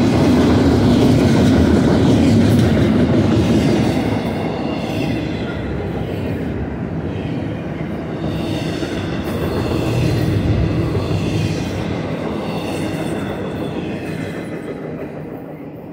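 Double-stack container train's well cars rolling past on the rails: a steady rumble and rattle of wheels and couplers, with a wavering high wheel squeal at times. It fades over the last few seconds as the end of the train goes by.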